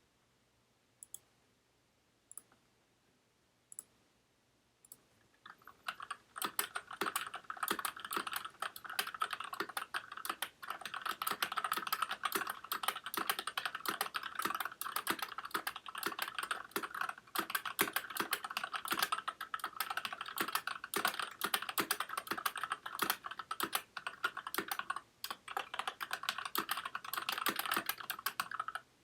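Varmilo VA68M mechanical keyboard with Gateron Red linear switches and DSA Granite keycaps being typed on. A few single keystrokes first, then steady fast typing from about six seconds in.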